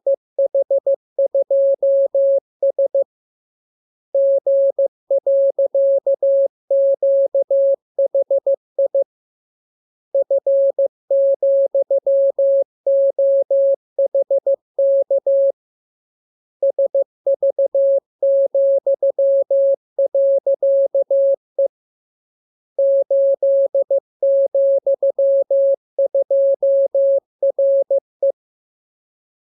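Morse code (CW) practice transmission: a single steady tone keyed on and off in dots and dashes, sending groups of letters, numbers and signs. The code comes in blocks of about five seconds with pauses of about a second between them.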